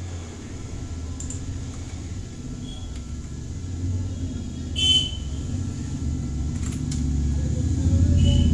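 Low rumble of background road traffic that grows louder toward the end, with a brief horn-like toot about five seconds in.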